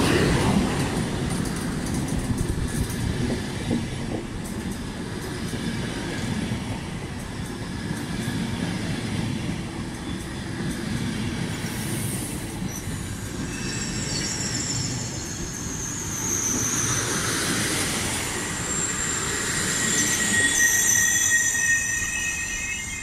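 Intercity passenger train hauled by an EP09 electric locomotive pulling into the platform, its wheels rumbling. In the second half a high, several-toned squeal comes in as the train slows to a stop.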